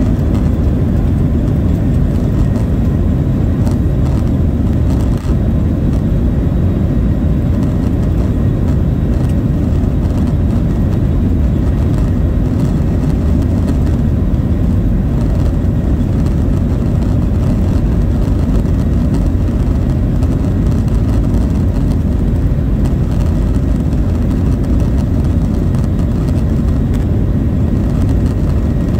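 Jet engine and cabin noise of a Southwest Boeing 737 heard from inside the cabin: a loud, steady low rumble with a faint whine above it, holding even throughout.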